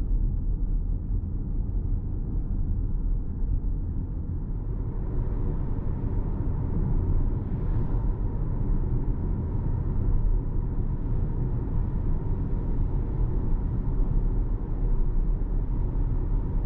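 Cabin noise of a 2026 Toyota RAV4 2.5-litre hybrid on the move: a steady low road rumble with a fainter hiss of tyres and wind that grows a little about five seconds in.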